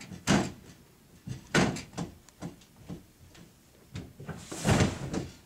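A series of sharp knocks and thumps from a person moving about on a small wooden platform. The loudest, longest one comes near the end.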